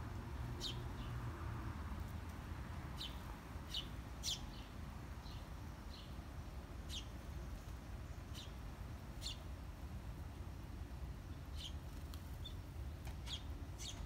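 Small birds chirping: short, sharp single chirps, roughly one a second and irregularly spaced, over a steady low background rumble.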